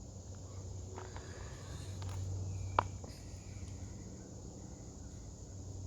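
Faint, steady high drone of crickets or other insects, over a low hum, with a single sharp click a little under three seconds in.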